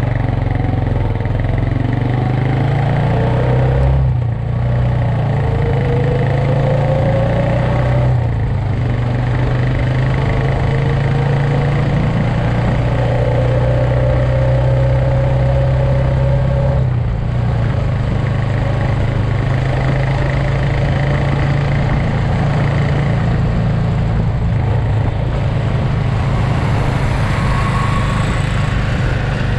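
Motorcycle engine running steadily at highway cruising speed, with wind and road noise. A faint whine rises slowly a few times, and the sound dips briefly about three times.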